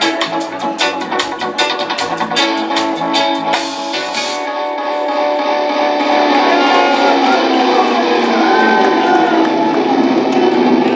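Live band music with electric guitar over drums and cymbals. About four seconds in the drumming stops, and sustained, layered tones ring on and swell, with a few gliding pitches.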